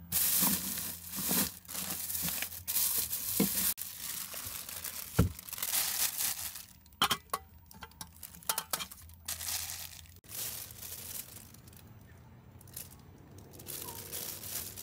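Plastic bag crinkling and rustling as it is handled, with a few sharp knocks from a cooler, pot and metal bowl being moved.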